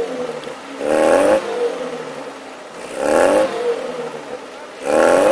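Lada Niva engine revved hard in three bursts about two seconds apart, dropping back between them, as the car spins its wheels stuck in deep snow.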